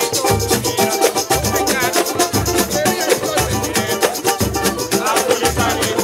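Live samba de roda played on hand percussion and strings: a tantan beats a steady low pulse under a busy pandeiro and repique de mão with jingling ticks, a banjo-cavaquinho strums, and voices sing over it.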